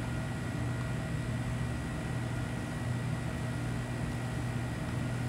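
Steady low mechanical hum with a faint high steady whine, the even running of room machinery such as ventilation; no distinct scrapes or knocks stand out.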